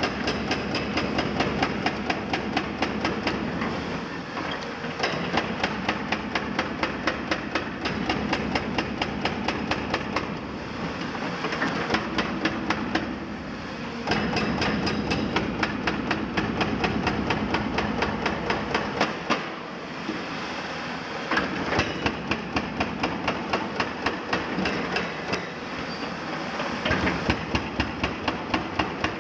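Excavator-mounted hydraulic breaker hammering concrete in a rapid, even rhythm of several blows a second, pausing briefly a few times, over the steady running of excavator diesel engines.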